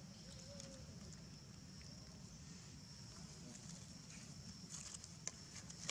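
Faint outdoor ambience: a steady high-pitched insect drone, with a few light rustles and clicks of dry leaf litter near the end as a baby monkey crawls over it.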